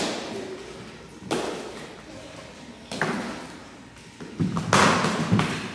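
Stage-combat practice swords hitting together: three sharp clacks, one at the start, one about a second in and one about three seconds in. Near the end comes a louder cluster of thuds and scuffling.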